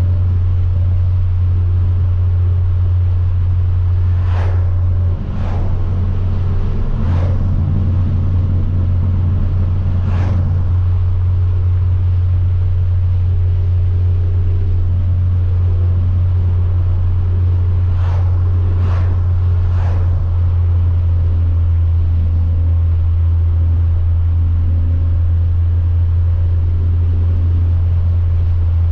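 Hyundai Veloster Turbo's turbocharged four-cylinder, with a catless downpipe and straight-piped exhaust, running steadily at cruise, heard from inside the cabin. A handful of short sharp cracks cut through: four scattered in the first third, then three evenly spaced about a second apart near two-thirds of the way in.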